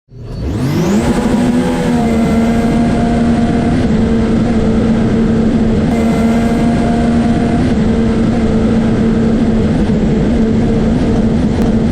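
Racing jet ski engine revving up quickly and then held at high, steady revs.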